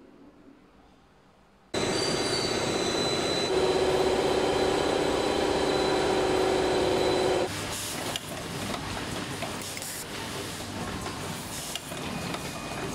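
Factory machinery in a USB-cable plant. A wire-stranding machine comes in abruptly about two seconds in with a loud, steady run carrying several held tones. About seven and a half seconds in it cuts to a quieter automatic connector-soldering machine running, with scattered clicks.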